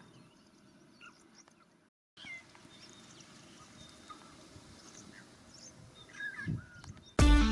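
Faint, scattered bird chirps over quiet bush ambience, with a brief cut to dead silence about two seconds in. Music starts abruptly right at the end.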